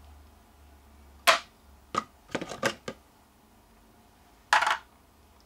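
Small cast lead fishing weights clicking and knocking as they are handled and set down on a scale and tray: a sharp click about a second in, a few quick taps around two to three seconds, and another sharp click near the end.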